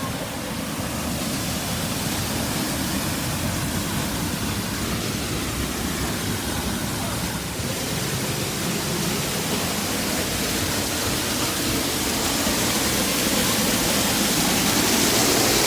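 Small waterfall pouring and splashing steadily, growing a little louder near the end as it is approached from behind.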